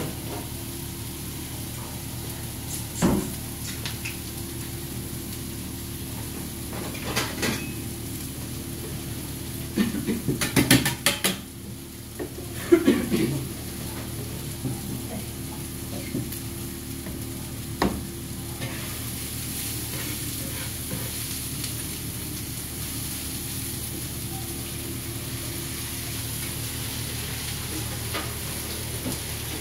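Chopped leeks and cabbage sizzling steadily on a hot flat iron griddle, with scattered metal clanks and scrapes of a spatula and pans, including a quick run of clatter about ten seconds in.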